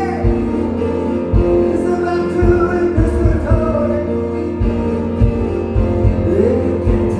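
Live keyboard-driven pop song from a two-keyboard duo: held synth chords over a steady low beat, with a singing voice.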